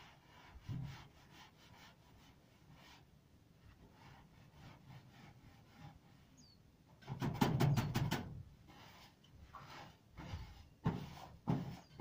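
A hand tool scraping and knocking on roof tiles as thick volcanic ash is cleared off them, in scattered short strokes with a louder run of quick strokes about seven seconds in.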